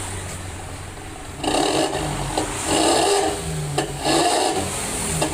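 Datsun GO's three-cylinder engine breathing through an aftermarket 'Suos Ngorok' snoring-style muffler, with the stock catalytic converter still fitted. It idles, then about a second and a half in gets three short throttle blips, each giving a loud raspy snarl from the exhaust.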